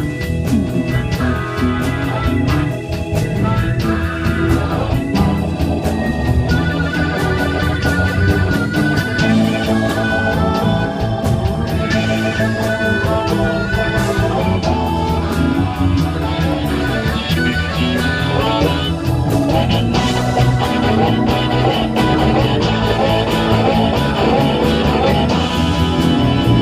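Live band playing a slow blues in E: guitar and organ lines over bass and a steady drum beat.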